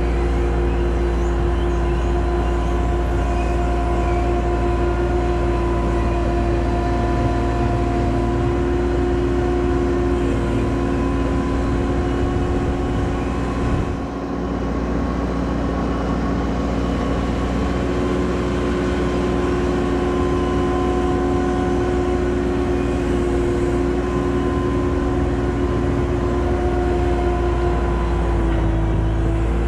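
1999 Bobcat 864 tracked skid steer's diesel engine running steadily under operation, with a steady whine over it and a brief dip about halfway through.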